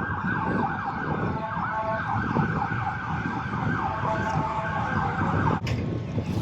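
Ambulance siren sounding with a repeating up-and-down pitch pattern over street noise, cutting off abruptly near the end.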